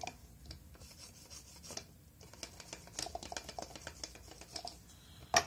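Hands handling a stamping plate, a stamper and a paper napkin: light rubbing and rustling with scattered small clicks, and one sharp click just before the end.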